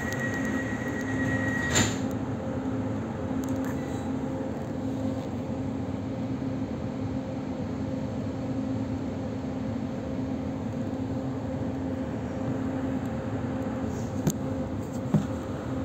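Inside an EG2Tv "Ivolga" electric train: the steady rumble of the running train with a steady low hum. A high steady tone cuts off with a click about two seconds in, and two short knocks come near the end.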